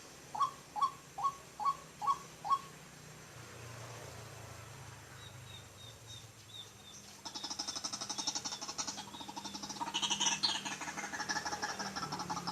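White-breasted waterhen calling: six evenly spaced hooked notes in the first few seconds, then a little past halfway a dense, fast stuttering run of calls that carries on to the end.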